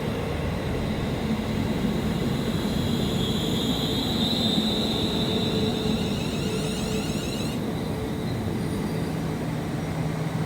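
West Midlands Railway Class 350 electric multiple-unit train running at the station, with a steady rumble and a faint high whine that is strongest in the middle.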